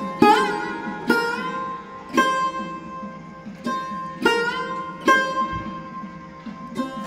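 Background music: slow plucked notes on a sitar-like string instrument, each note ringing and bending in pitch after it is struck.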